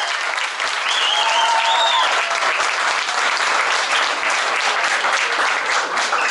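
Audience clapping and cheering at the end of a song, with a couple of whoops about one and two seconds in.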